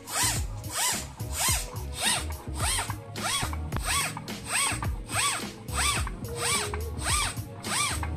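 Bicycle hand pump being worked in quick, even strokes, about one and a half a second, each stroke a rising-and-falling squeaky whoosh, inflating a freshly mounted tubeless bike tire.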